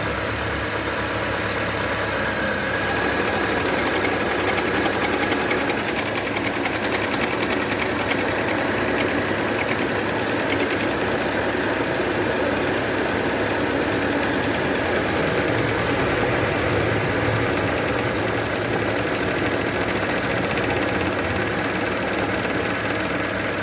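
Chevrolet Spin's electric radiator cooling fan running with an abnormal noise, over the engine running at idle: a steady mechanical drone with a faint whine.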